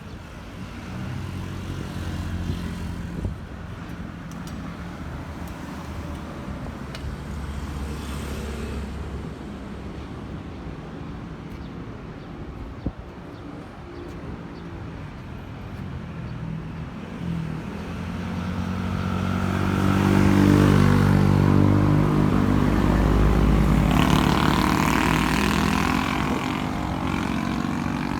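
A motor engine running close by, steady at first, then growing louder over the second half as it nears and peaks before easing off slightly.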